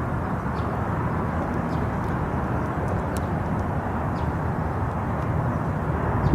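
Jet engines of a Frontier Airbus A320 airliner running at departure, heard as a steady, even rush.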